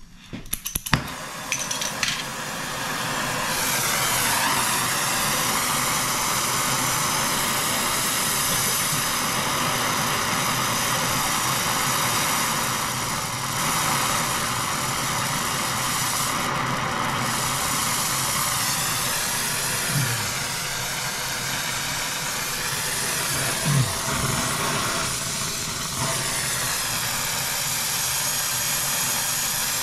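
Oxyacetylene torch being lit with a few sharp clicks at the start, then its flame hissing steadily for brazing copper refrigerant lines.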